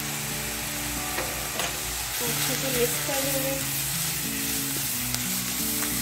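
Shredded chicken and vegetable filling sizzling in a non-stick frying pan as it is stirred and tossed with a silicone spatula, with a few short scrapes of the spatula against the pan. Soft background music with slow, held notes plays underneath.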